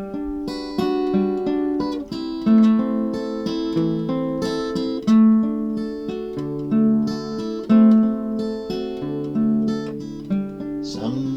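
Instrumental break in a song: guitar playing the melody, with plucked notes that ring and fade, and no singing.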